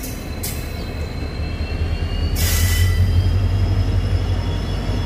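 Express passenger train running on the track: a steady low rumble that grows louder about two seconds in, with a thin high whine from the wheels and two short rushes of hiss.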